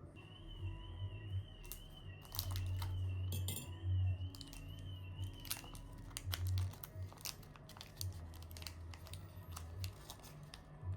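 Light crinkling and a scatter of short clicks from things being handled, over quiet background music.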